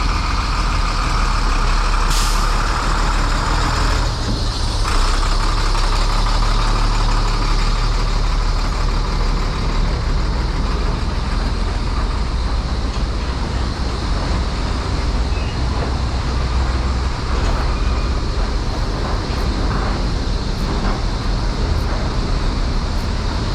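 Heavy highway traffic, with trucks and other vehicles passing in a steady, loud rumble.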